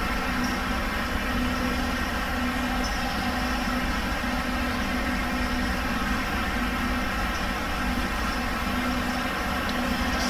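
Steady mechanical drone with a faint tone that comes and goes, and no distinct events.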